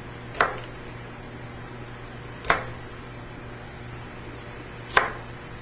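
A chef's knife trims the stem ends off Brussels sprouts and knocks onto a plastic cutting board three times, about two and a half seconds apart, over a steady low hum.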